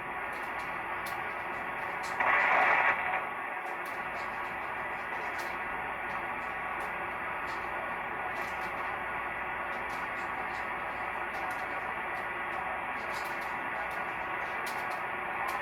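Receiver static hissing steadily from an HTOOL SDR-V5 software-defined radio's speaker tuned to an empty 11-meter CB channel, with a brief louder burst of noise about two seconds in.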